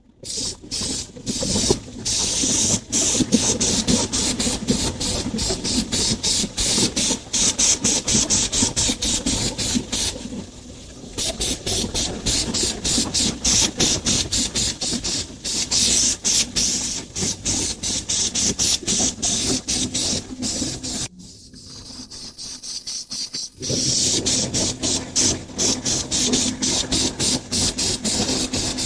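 Aerosol spray paint can hissing in rapid short spurts as a base coat is sprayed onto an alloy wheel. The spraying pauses briefly about ten seconds in, and again for a couple of seconds a little after twenty seconds.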